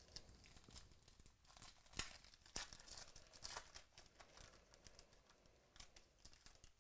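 Foil trading-card pack being torn open and crinkled by hand: a faint run of crackles and rips, with a louder crackle about two seconds in.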